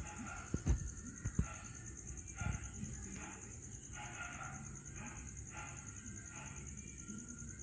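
Gouldian finches giving soft, short calls, repeated roughly once a second, over a steady high pulsing buzz. A few knocks come in the first second and a half.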